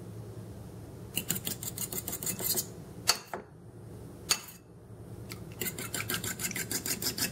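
A metal fork beating raw eggs in a ceramic bowl, clicking rapidly against the bowl's sides. There are two runs of quick strokes, about eight a second, with a couple of single taps between them.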